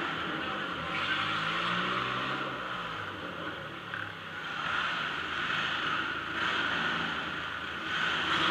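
Democross car's engine running at low speed, heard from inside the car, its revs rising and falling several times.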